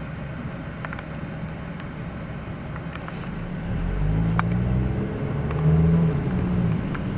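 Cabin noise of a moving car, heard from the back seat: low engine and road rumble. About four seconds in it gets louder and the engine's hum comes up, with a few faint clicks.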